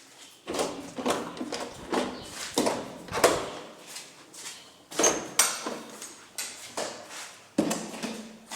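Irregular knocks, clatters and scrapes, about a dozen of them, some ringing briefly.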